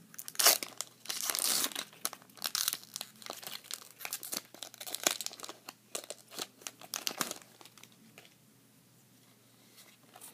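Foil wrapper of a Pokémon Legendary Treasures booster pack crinkling and tearing as it is ripped open. It gives a rapid, irregular crackle that dies down about three-quarters of the way through.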